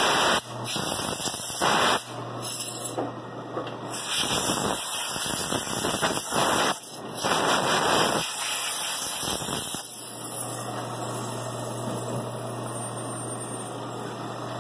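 Sandpaper held against a freshly resurfaced brake rotor spinning on an Ammco brake lathe: a rasping hiss that comes in several loud bursts over the first ten seconds, then goes on more evenly. This cleans the cutting shavings off the rotor faces. Underneath runs the lathe motor's steady low hum.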